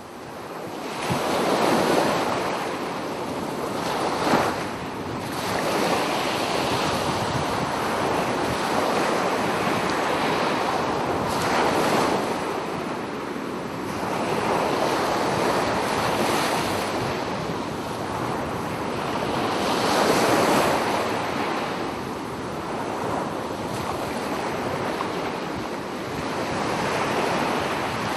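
Ocean waves breaking and washing up on a beach. The sound is a continuous rush of surf that swells and eases every few seconds, fading in over the first second or two.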